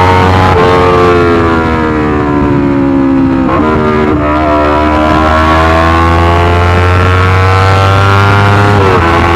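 Yamaha R25's parallel-twin engine through a loud Racefit Slash aftermarket exhaust, running under way. Its note sinks for a few seconds, changes abruptly, then climbs steadily for about five seconds before dropping suddenly near the end.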